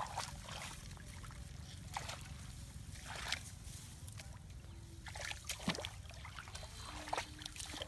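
Intermittent rustling of rice plants and small splashes of shallow muddy water as hands grope through a paddy for fish, over a steady low rumble.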